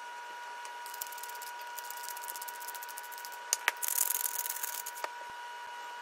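A hand-held spice grinder twisted over raw chicken: a couple of sharp clicks, then about a second of gritty crunching as salt or pepper is ground. Before it, a faint fine patter as chopped thyme is sprinkled by hand, over a steady faint whine.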